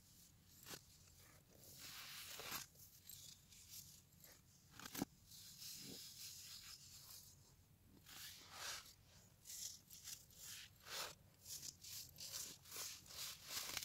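Compressed baking soda blocks and loose powder crumbled and crushed between the fingers: soft crunches and powdery rustles in short, uneven bursts, with one sharp crack about five seconds in.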